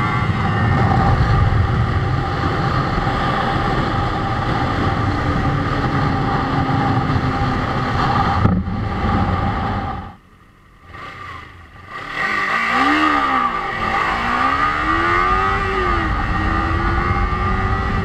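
Motorcycle engine running at speed with wind rush. The sound drops out sharply for about two seconds midway. Then the engine pitch rises and falls a few times and climbs slowly again.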